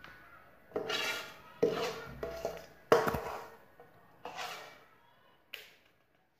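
Steel spatula scraping sticky jaggery-and-gathiya mixture out of a kadai onto a steel plate: a run of about six metal-on-metal scrapes and knocks, the loudest about three seconds in.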